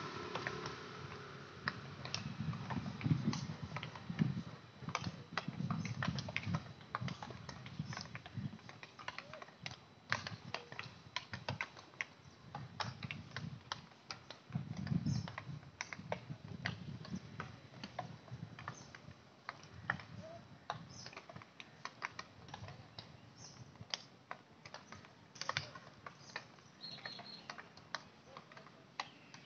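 Many irregular sharp clacks of field hockey sticks striking balls on an artificial turf pitch, over a low, uneven rumble.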